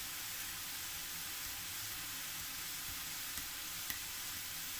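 Boondi (drops of gram-flour batter) frying in hot oil with a steady sizzle, and a couple of faint clicks late on.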